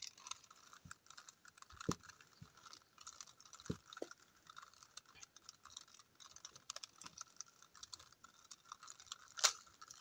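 Layers of a GAN 3x3 speed cube being turned quickly by hand to scramble it: a faint, rapid run of small plastic clicks with a few louder clacks.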